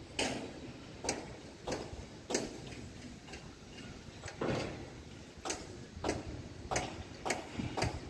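Footsteps in open sandals slapping on a concrete rooftop floor, a sharp slap roughly every half-second to second.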